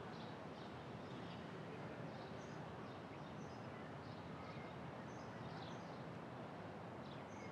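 Faint outdoor ambience: a steady low background hush with small birds chirping briefly on and off.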